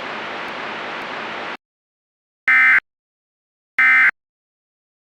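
Steady static hiss that cuts off about a second and a half in, then two short, shrill digital data bursts about a second and a quarter apart: the Emergency Alert System end-of-message code that closes the alert.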